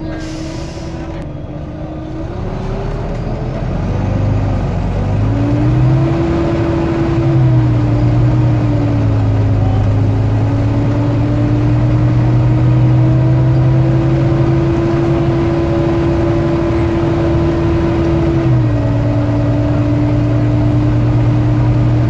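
Volvo B9TL double-decker bus's six-cylinder diesel heard from on board, pulling away and accelerating, then running steadily, with a drop in engine note about three-quarters of the way through as the gearbox changes up. A high whine climbs with the acceleration and stays over the engine: the vacuum-cleaner-like sound that earns this bus the nickname 'Hoover'. A short hiss of air comes right at the start.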